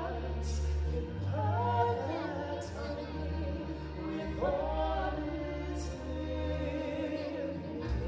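Live stage-show music: singers holding long, wavering notes over a band backing with a steady deep bass.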